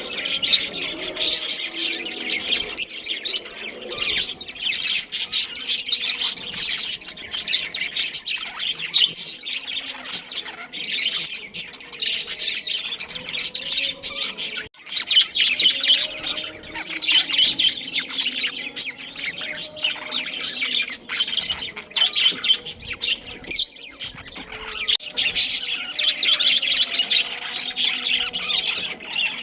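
Budgerigars chattering, many quick high chirps and warbles overlapping without pause, with a momentary gap about halfway through.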